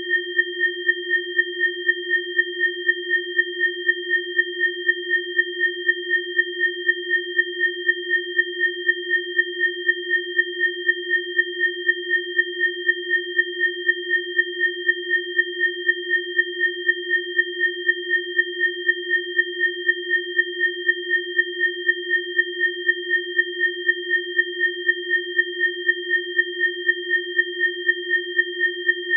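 Electronically generated pure sine tones of a biofrequency track: a low tone and two higher tones held steady together, the sound pulsing evenly about three times a second.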